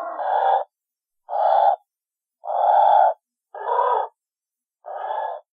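Pelican giving five harsh, breathy grunting calls in a row, about one a second, each lasting about half a second.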